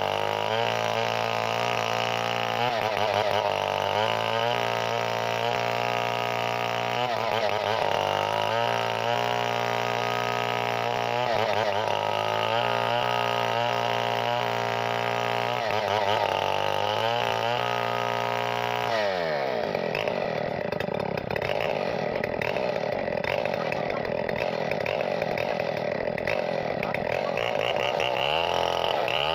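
Chainsaw engine running and being revved up and down again and again. About two-thirds of the way in, the pitch drops suddenly and the sound turns rougher and steadier for several seconds. Near the end the revving returns.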